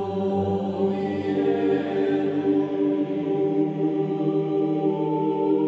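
Background music: slow, held chords with a choir-like sound, moving to a new chord near the end.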